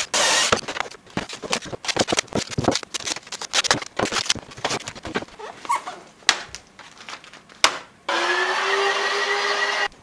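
A cordless drill runs briefly at the start. Then comes a run of clicks and knocks from wooden boards and tools being handled on a workbench. About eight seconds in, a small electric motor spins up and runs steadily for about two seconds before stopping.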